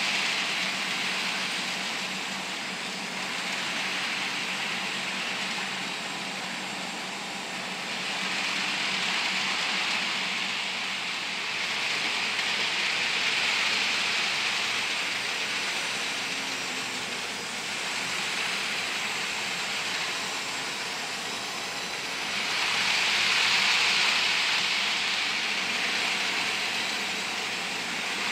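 HO scale Life-Like Chessie GP38 model locomotive and its freight cars running on the layout's track: a steady running noise that grows louder and softer several times as the train circles, loudest near the end.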